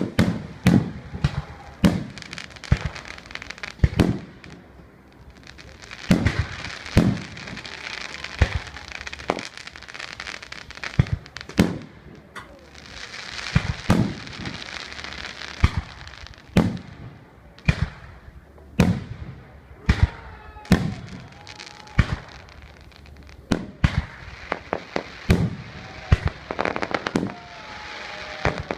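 Aerial fireworks display: shells bursting in sharp bangs, one or two a second, with stretches of dense crackling between them.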